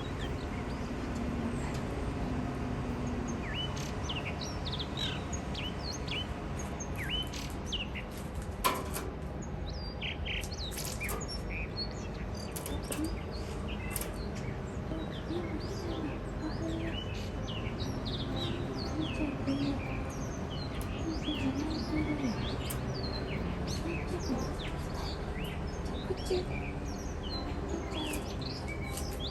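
Blue rock thrushes singing in spring, a run of short, quick chirping and warbled phrases over a steady low background hum, with one sharp click about nine seconds in.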